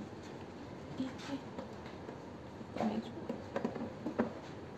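Scattered light clicks, knocks and rubbing of plastic as a grey multi-line connector is pushed into a port on a pressotherapy machine and its cables are handled. Several small clicks come in a cluster near the end.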